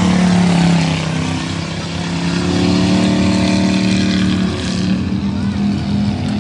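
Dirt-track pure stock race car engines running hard, their pitch falling and rising as the cars lift and get back on the throttle through the turns.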